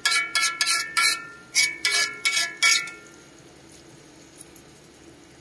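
Metal spatula clanging against a thin metal wok while stir-frying greens: a quick run of about ten ringing clinks over the first three seconds, then only a couple of faint ticks.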